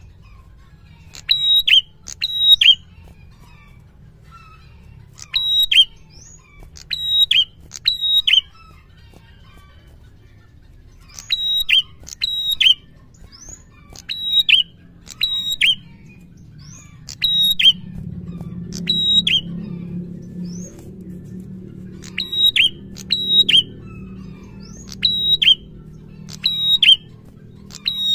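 A red-headed prenjak, an ashy tailorbird, singing: sharp, high notes that each drop in pitch, given in quick runs of two to four with pauses of a few seconds between runs. A low hum rises in the background about two-thirds through and fades near the end.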